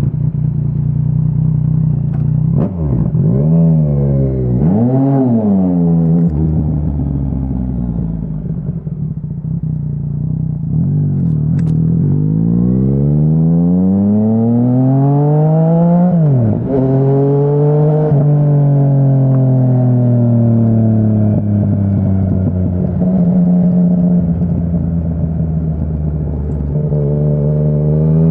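Yamaha Tracer 900's three-cylinder engine through a Dominator HP3 full-system aftermarket exhaust, running loud with its revs rising and falling several times. There are short blips about three and five seconds in, then a longer climb to a peak around sixteen seconds that drops off sharply. It is heard from a recorder carried in the rider's backpack.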